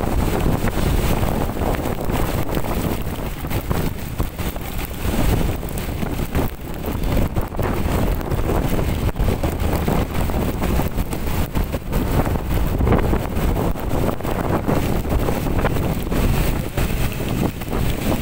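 Strong storm wind gusting and buffeting the microphone in a low, fluctuating rumble, over the hiss of heavy rain.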